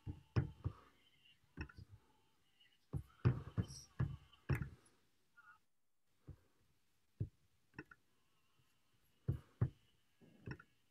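Scattered knocks and bumps from hands handling a phone or computer and its microphone, loudest in a cluster a few seconds in, with short quiet gaps between.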